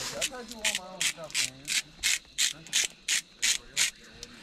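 Hand-twisted spice grinder grinding seasoning onto a raw steak: short crunching, ratchet-like strokes at about three a second.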